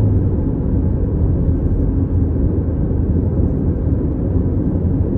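Steady low rumble of a car driving along a highway, its road and engine noise heard from inside the cabin.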